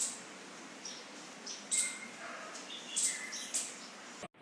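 Birds chirping: several short, high chirps a second or so apart over a steady background hiss, cut off suddenly near the end.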